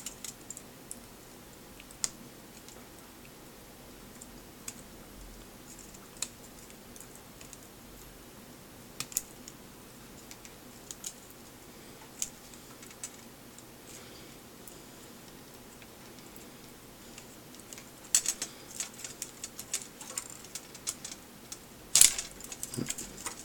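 Small clicks and taps of plastic parts and tools being handled while a pair of video glasses is dismantled: scattered for most of the time, then a quick run of clicks near the end with one sharper snap.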